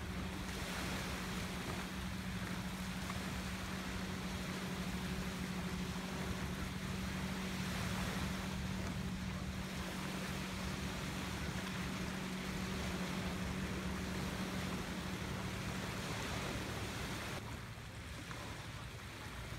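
Wind and small waves at the lakeshore, under a steady low hum. The hum stops suddenly near the end, and the wash of noise turns quieter.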